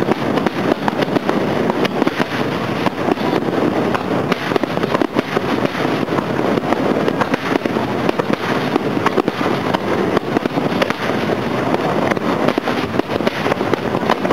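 Aerial fireworks going off in a dense, unbroken barrage: many bangs and crackles follow one another so closely that they run together.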